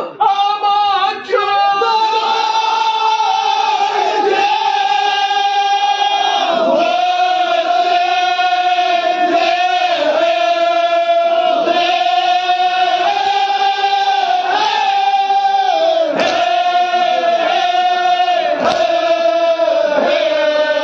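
Voices singing a slow Kashmiri marsiya lament together, in long held notes that fall away at the end of each phrase.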